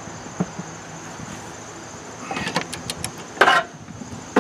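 Torque wrench ratchet head clicking on a mower blade nut as the handle is worked to tighten it, with scattered short clicks and one louder knock about three and a half seconds in.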